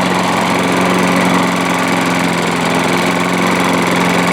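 Briggs & Stratton 125K02 engine on a Troy-Bilt lawn mower running steadily at an even speed, keeping going without dying after a carburettor clean-up and new bowl gasket.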